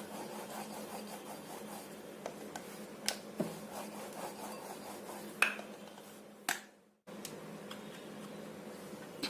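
Rolling pin rolling out a ball of maida dough on a board: a soft, continuous rubbing with a few light knocks of the pin.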